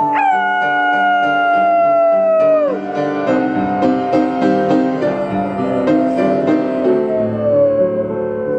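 Live song accompaniment on piano or keyboard: sustained chords, with a long held note that slides slowly down in pitch and stops about three seconds in.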